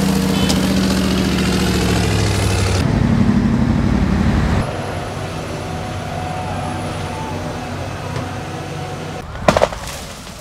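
Heavy off-road truck diesel engines running, loud for the first few seconds and then quieter, with abrupt changes from one engine sound to the next. A few sharp knocks come near the end.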